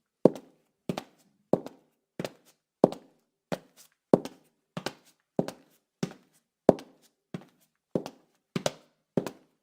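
High heels walking on a tile floor: sharp heel clicks at a steady pace of a little under two steps a second, many steps landing as a quick double tap with a short ring after.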